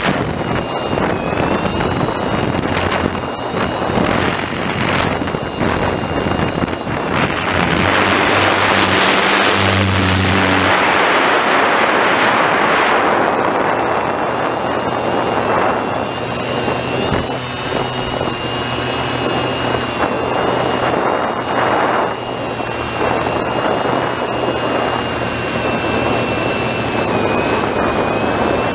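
Quadcopter drone's propellers running with a steady high-pitched whine, mixed with wind rushing over the onboard microphone. The wind noise swells for a few seconds about eight seconds in.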